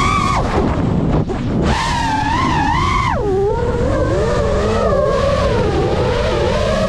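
FPV quadcopter's brushless motors and propellers whining, the pitch rising and falling with the throttle: briefly cut about a second in, pushed higher for about a second from near two seconds in, then dropping to a steadier, lower whine.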